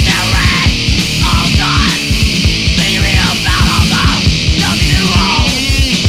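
Loud punk rock music: distorted electric guitars over fast, pounding drums.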